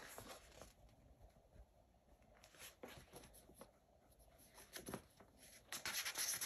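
Faint rustling and soft taps of a paperback picture book's pages being handled and turned, denser and louder near the end.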